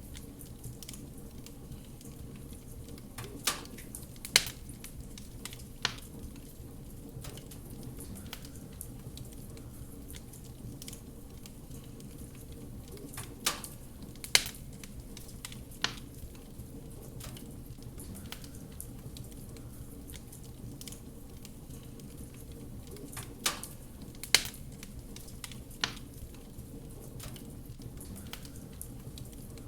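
Wood fire crackling in a fireplace: a steady low rush of flames with scattered soft ticks and a few sharp pops. The same group of three pops comes back about every ten seconds.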